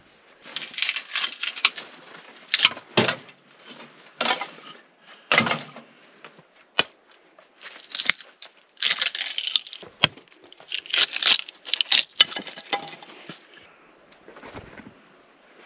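Kindling wood being shaved and split with a knife: a string of irregular scraping strokes and sharp cracks, fading out near the end.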